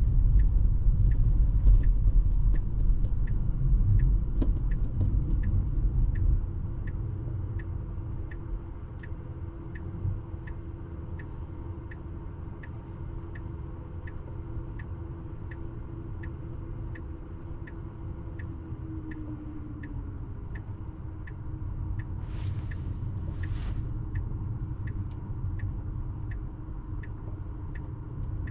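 Tesla cabin sound while driving: low road rumble that drops about six seconds in as the car slows, with the electric drive's whine sliding down in pitch and fading a little past halfway. A regular electronic click of the turn-signal indicator ticks about one and a half times a second, and two short hisses come near the end.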